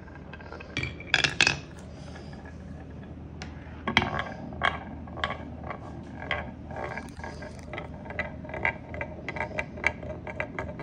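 Marbles rolling along a wooden squiggle marble-run track, clicking and clattering against the wooden rails. A few clicks come around a second in, and from about four seconds on the clicks run in a quick, irregular string that gets denser toward the end.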